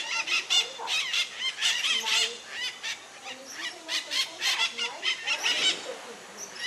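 A flock of maritacas, small Brazilian parrots, giving many short shrill squawking calls that overlap one another without a break.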